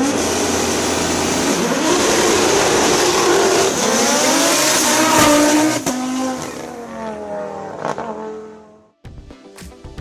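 Rally car engine at high revs, accelerating and changing gear, then passing and fading away with falling pitch. Music with a beat cuts in about nine seconds in.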